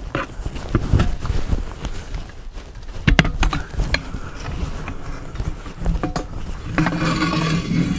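Steel tyre bar of a manual tyre changer knocking and scraping against the wheel rim and centre post as a tyre is levered back onto the rim, a string of sharp metallic knocks and clicks. For about the last second a steady humming tone with hiss comes in.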